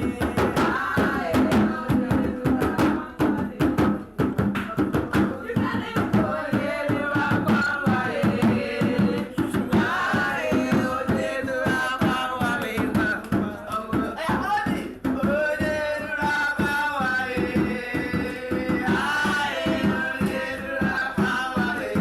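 Music with fast, dense hand-drum percussion and singing over it, running without a break.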